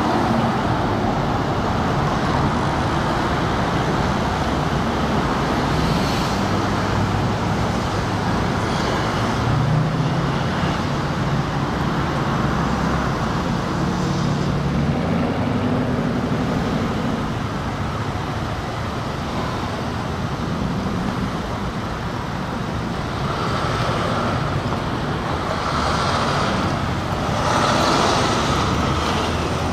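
Road traffic: cars and pickups idling and rolling through a gate checkpoint, with a steady low engine hum and a few louder surges of passing vehicles near the end.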